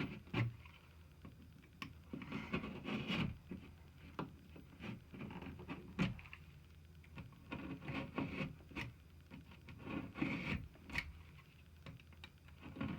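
Knife scoring and cutting through drywall: repeated scraping strokes along the cut line, with a few sharp clicks.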